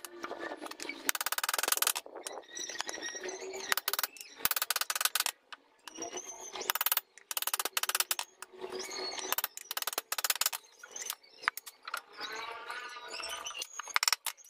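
Hand saw cutting a wooden slat, in repeated bursts of rasping strokes with short pauses between them.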